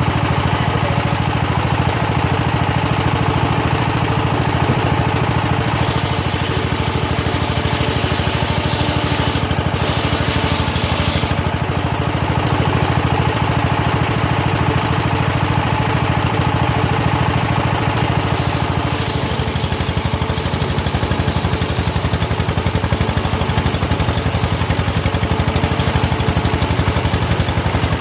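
Homemade circular saw rig running steadily with a low, even machine drone. Twice, for about five seconds each time, the blade rips through hard teak with a loud high-pitched hiss.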